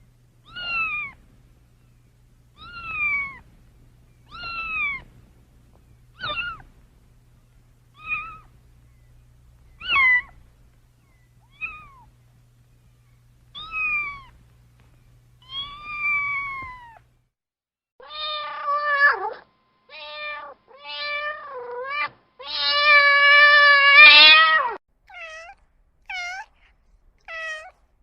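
A kitten meowing over and over: short, high, falling mews about every two seconds. In the last third these give way to lower, longer meows, including one long drawn-out meow, and then a run of quick short mews.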